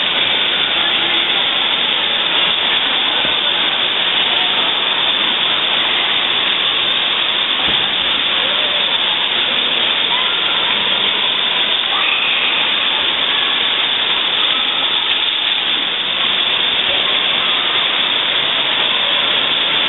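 Steady hiss of rushing and splashing water from a water-park play structure's sprays and jets.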